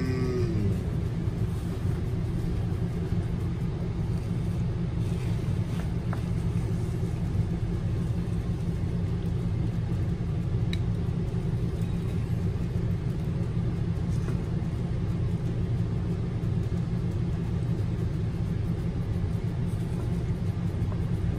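A steady low hum, with a few faint light knocks from a wooden spurtle scooping creamy pasta out of the pot onto a plate.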